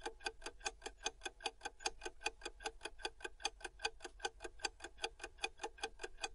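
Ticking-clock sound effect for a quiz countdown timer: quick, even ticks, about five a second.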